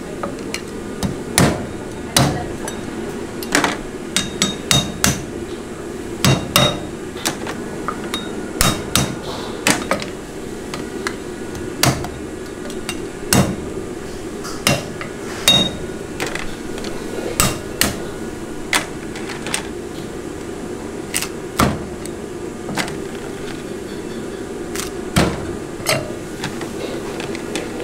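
Heavy Chinese cleaver chopping and cracking crab claws and shell on a thick wooden chopping block: sharp, irregular chops, sometimes several in quick succession.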